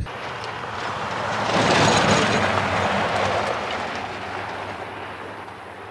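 A vehicle passing by: a rushing noise that swells to its loudest about two seconds in, then slowly fades away.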